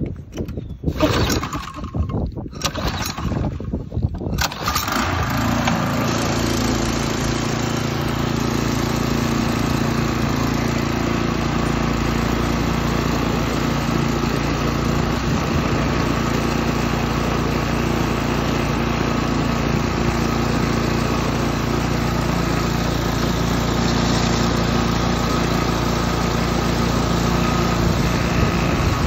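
Toro TimeMaster lawn mower's Briggs & Stratton engine being started: a few separate sputtering bursts over the first four seconds, then it catches and runs at a steady speed.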